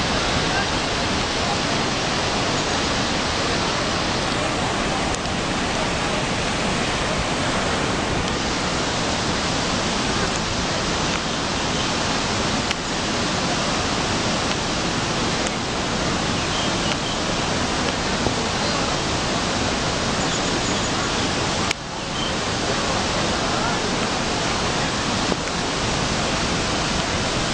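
River in flood: a torrent of muddy water rushing over and around a footbridge, a loud steady rushing noise. It dips briefly about three-quarters of the way through.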